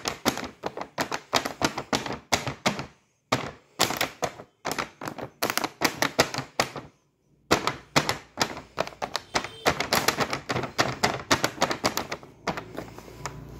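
Clear plastic window of a doll's box crackling and clicking under fingers, a quick uneven run of sharp clicks, several a second, with two short pauses. Near the end the clicks stop and a low steady hum is left.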